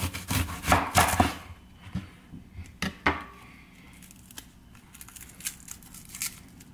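A kitchen knife cuts through an onion and knocks on a plastic cutting board a few times. Then the dry, papery onion skin crackles and tears as it is peeled off by hand.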